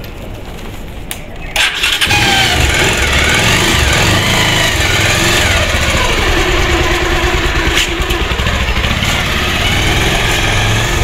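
Motorcycle engine started about a second and a half in, then running steadily and loudly.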